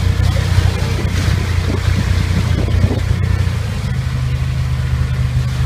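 Side-by-side UTV engine running steadily as the vehicle drives along a dirt trail, heard from aboard; its pitch steps up slightly about four seconds in.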